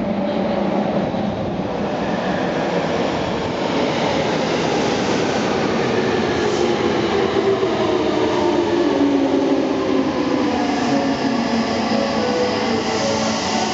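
Meitetsu 100 series electric train pulling into an underground subway station, its wheels rolling on the rails. A whine falls in pitch as the train slows.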